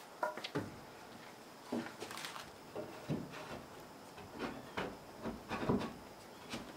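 Irregular wooden knocks and clunks, about a dozen short ones spread over several seconds, as pieces of wood are handled and shifted at the sill.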